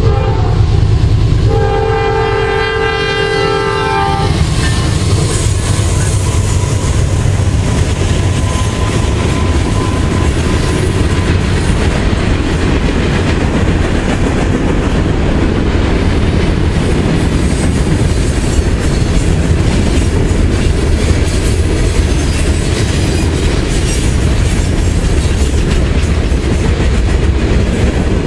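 Norfolk Southern freight train's horn sounding one blast of a couple of seconds, starting about a second and a half in, then the train's covered hoppers and boxcars rolling past with a steady rumble and clickety-clack of wheels over rail joints.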